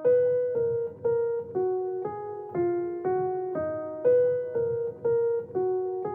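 Slow melody of single electric-piano notes, about two a second, each struck and left to fade.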